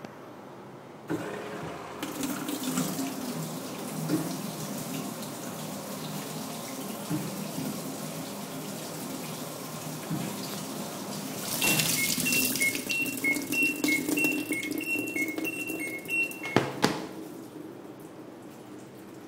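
Water rushing through a washing machine. For a few seconds in the second half, a series of short electronic beeps alternates between two pitches over the water. The water cuts off suddenly, followed by a couple of sharp clicks.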